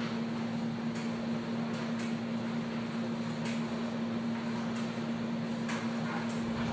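Laundry-room washers and dryers running: a steady, even machine hum with faint light clicks at irregular moments.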